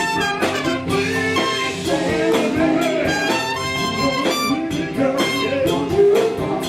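Live soul band playing an instrumental passage: guitar over a steady drum-kit beat.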